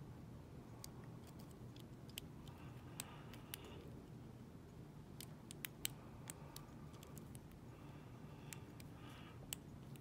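Lock pick and tension wrench working the pin tumblers of an Abus oval padlock: faint, irregular metallic clicks and light scrapes as the pins are lifted and set, over a low steady hum.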